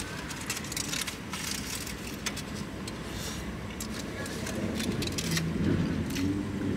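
Aluminium foil burrito wrapper crinkling in a series of short, sharp rustles as it is handled and peeled back, over a low steady rumble.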